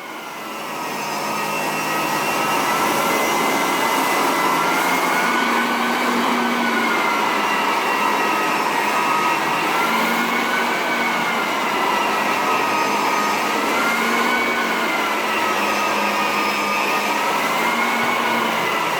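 Electric floor-sanding machine with its dust extractor running steadily. The motor whine drifts slowly up and down every few seconds. The sound builds up over the first two seconds.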